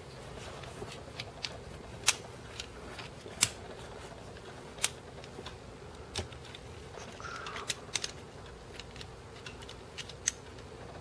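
Small steel pistol parts being handled as the slide of a Martian Commercial 6.35mm pistol is pushed back onto the frame and the barrel is worked into place. Scattered sharp metal clicks come roughly a second apart over faint rubbing and handling noise.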